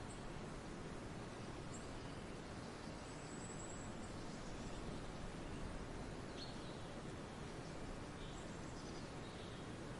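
Forest ambience: a steady background hiss with faint, scattered high-pitched bird calls, including a short trill about three seconds in and a few brief chirps later.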